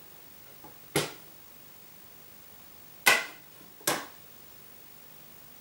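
Three sharp wooden clicks as the plywood window storage cupboard panel, with its brass-hinged doors, is handled: one about a second in and two close together about three and four seconds in.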